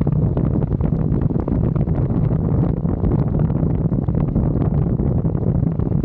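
Honda CT125 Trail 125's single-cylinder engine running steadily at riding speed, heard on a camera mounted on the moving bike, mixed with heavy wind noise on the microphone.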